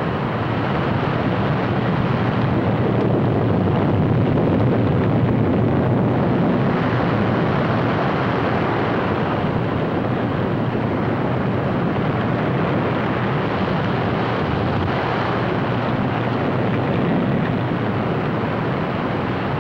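Steady rushing noise of strong wind and rough sea, swelling and easing slowly, with no engine tone or voice in it.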